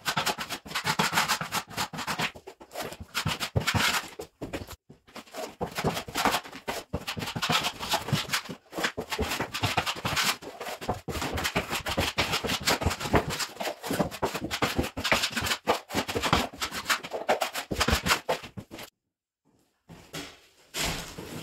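A metal drywall knife scraping patching compound out of a plastic mud pan and spreading it over holes in drywall, in quick repeated strokes. The scraping stops near the end.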